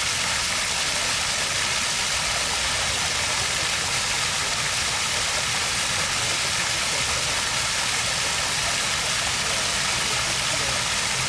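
Water stream flowing: a steady, even rushing hiss that does not change.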